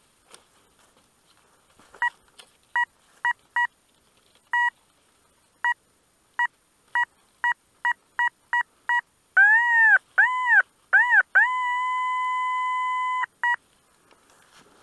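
Metal detector's audio responding to metal under its search coil as it sweeps: short electronic beeps at one pitch, coming faster and faster, then several tones that rise and fall in pitch, then a long steady tone of about two seconds and one last short beep.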